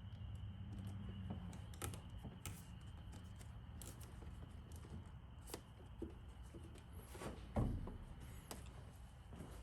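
Light clicks, taps and rustling of hands working in a car's engine bay, fastening plastic cable ties around wiring and hoses, with one louder knock a little past halfway through.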